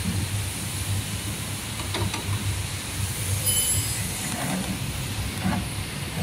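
Mattress tape edge machine's sewing head stitching binding tape onto a mattress edge, a steady running hum with an even pulse.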